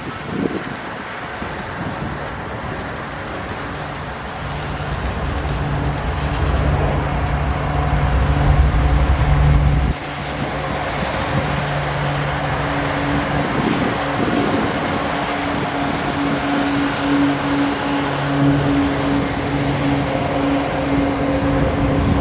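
Diesel-hauled freight train running by, with a steady low engine drone over rumbling wheel and rail noise. The sound grows louder, cuts off abruptly about ten seconds in, then carries on steady.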